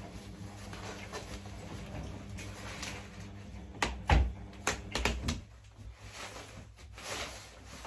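Babyzen YOYO2 pushchair being handled during assembly: a few sharp plastic-and-metal clicks and knocks, the loudest about four seconds in and more around five seconds, over a low steady room hum.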